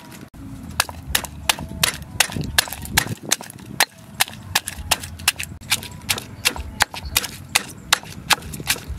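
Stone pestle pounding garlic cloves in a heavy stone mortar: sharp, quick knocks at about three a second, starting about a second in.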